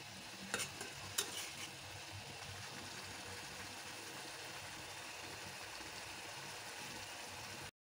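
Curry of amaranth stalks and potatoes sizzling steadily in a black iron kadai as its added water cooks off. A metal spatula scrapes and knocks against the pan a few times in the first second and a half.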